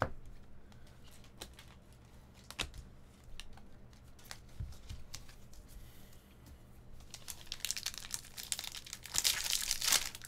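Scattered light clicks of trading cards being handled. From about seven seconds in, a foil card-pack wrapper crinkles and tears as it is opened, louder toward the end.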